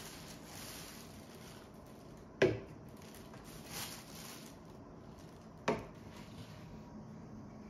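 A plastic shopping bag rustling as items are pulled out. Two sharp knocks of small drink cans being set down on a wooden counter, the louder about two and a half seconds in and another a little before six seconds.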